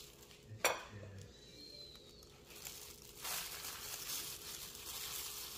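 One light knock about half a second in, then a steady crinkly rustling from about three seconds in as a plastic-gloved hand presses a chicken cutlet into breadcrumbs.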